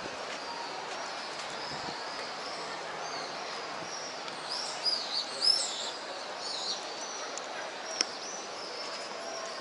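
Birds chirping high overhead, in a quick cluster of calls about halfway through, over a steady open-air background noise; a single sharp click near the end.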